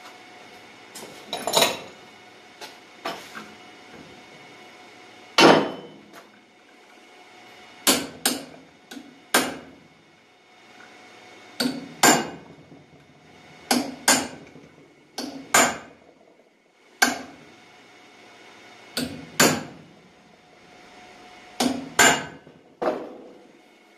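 Hammer striking a steel punch on the lock tab at the centre of a vintage Ski-Doo Rotax engine's drive clutch, knocking the lock loose. The taps are sharp and metallic with a short ring, often in pairs, a couple of seconds apart.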